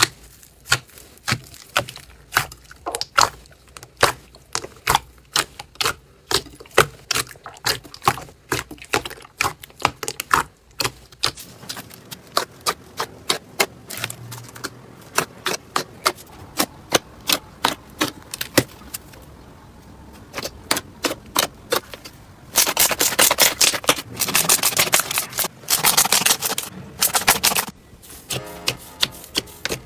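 Slime being pressed and poked, giving sharp pops and clicks at irregular intervals, then dense runs of rapid crackling about two-thirds of the way through.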